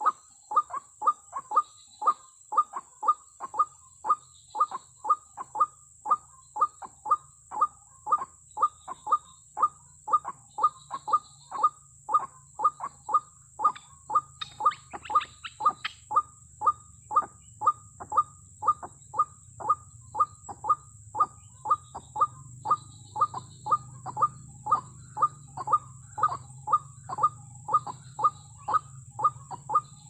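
White-breasted waterhen (ruak-ruak) call: a short falling note repeated about twice a second without a break, the repetitive 'kru-ak' call that trappers use as a lure to draw the birds in.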